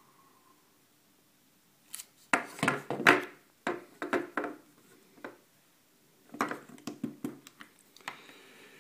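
Hand crimping tool squeezed shut on an RJ45 modular plug, pressing its pins and cord holder into the wires: clusters of sharp clicks and clunks about two seconds in and again about six seconds in, with handling of the tool and plug.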